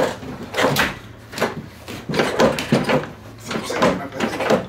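Irregular clunks and rattles, several a second, as the snowmobile's chassis is let down on its lifting strap onto the rear suspension skid.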